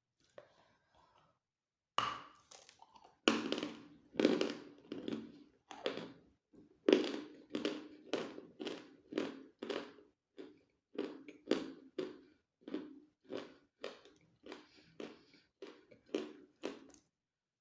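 Close-up biting and chewing of hard chalk: sharp, dry crunches about two to three times a second, starting about two seconds in.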